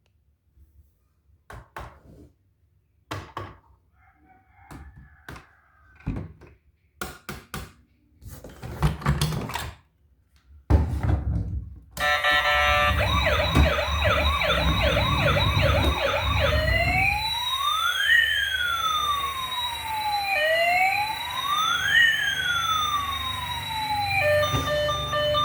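Scattered clicks and knocks of a plastic toy being handled, then a battery-powered toy emergency vehicle's electronic siren switches on about halfway through: a fast yelping warble for a few seconds, then a slower wail rising and falling, over a low hum.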